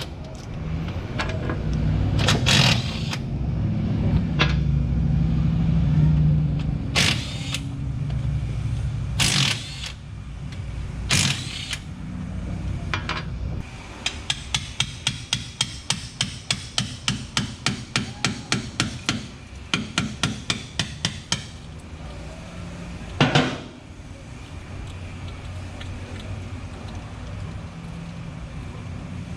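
Hand-tool work on a truck's rear differential: scattered metal knocks over a low rumble, then a fast run of evenly spaced clicks, about three a second for several seconds, and one loud knock near the end.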